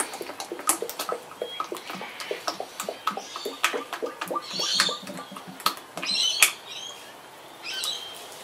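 Liquid glugging out of a metal tin's small pour opening into a bucket of water: a quick, irregular run of gurgling pops as air gulps back into the tin, with brief splashy patches.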